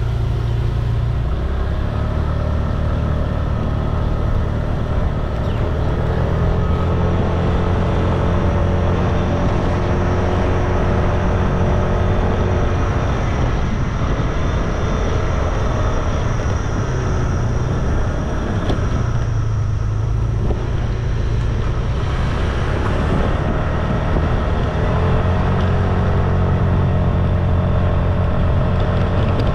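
Scooter engine running under way with a steady low rumble, its note rising and falling with the throttle. It eases off twice, around the middle and again a few seconds later, then picks up again near the end.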